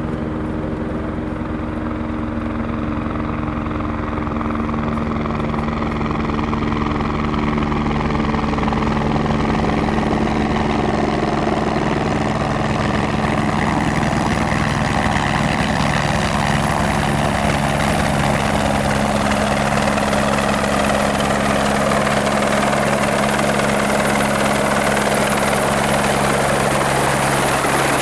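Airbus AS350 B1 Écureuil helicopter approaching to land. Its rotor and single turboshaft engine grow steadily louder as it closes in, and a high whine comes up in the last few seconds.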